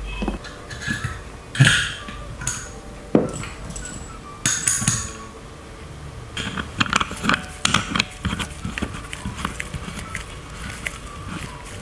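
Small metal clicks, clinks and scrapes of hands and tools working on a Zippo lighter while its ignition wheel is swapped out. There are a couple of louder scraping sounds in the first half, then a run of quick light clicks from about six seconds in.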